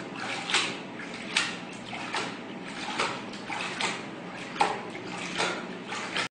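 Hand-made studio sound effect: a swishing stroke repeated evenly about once every 0.8 seconds, over a steady low hum.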